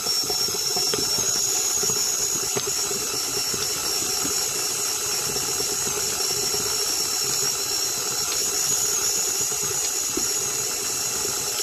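KitchenAid Artisan stand mixer running steadily with a high whine, its beater creaming butter and sugar in a metal bowl.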